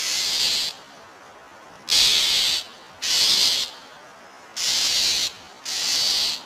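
Five loud, harsh hisses, each lasting under a second, coming at roughly one-second intervals.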